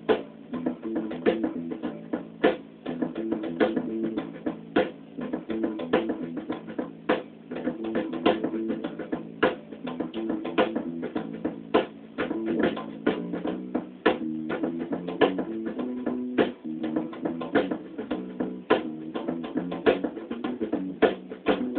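A recorded band track with drum kit and bass, played back over studio monitor speakers and picked up by a phone's microphone, which cuts off the highs.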